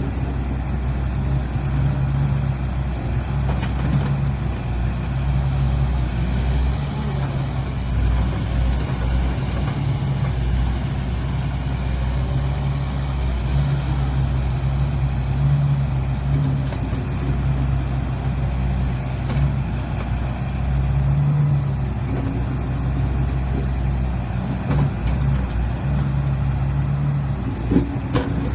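Heavy diesel engine running steadily at an even speed, a low, constant hum.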